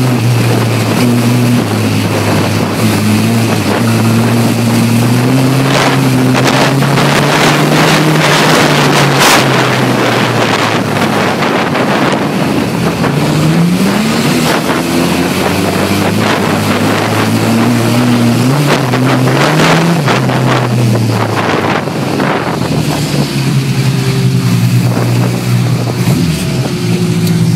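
Engine of a stripped-out banger race car heard from inside the cabin, its pitch rising and falling with the throttle through the corners. Several sharp knocks and rattles from the bodywork break in, with wind buffeting the microphone.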